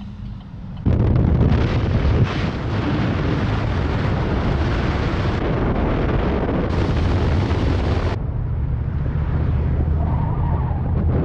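A car driving along a road, heard through a microphone mounted on the outside of the car: wind rushing over the microphone, with tyre and road noise over a low, steady engine hum. It starts abruptly about a second in, and the hiss thins out about eight seconds in.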